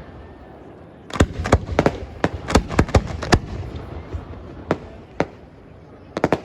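Fireworks going off: a rapid run of about ten sharp bangs in the second and a half after the first second, then two single bangs and a quick pair near the end, with a low rumbling haze between them.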